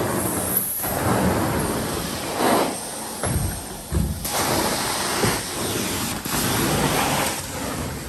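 Carpet-cleaning machine running: a steady rushing, hissing noise that swells and dips every second or so.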